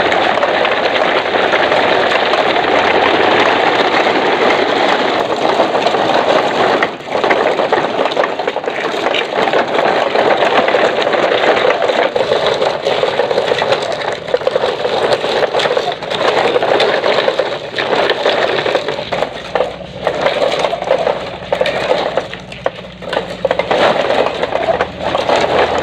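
Plastic toy dump trucks rolling over dirt and gravel, their wheels and loaded bodies giving a continuous crunching rattle that pauses briefly a few times.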